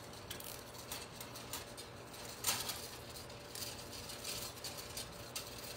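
Faint handling sounds of a plastic zip tie being pulled tight around a bundle of twigs and ribbon: scattered soft clicks and rustles, one slightly louder about two and a half seconds in, over a low steady hum.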